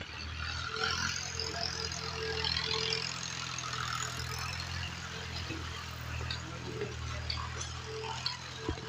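Concrete mixer's engine running steadily, a low even hum with faint scattered rattles above it.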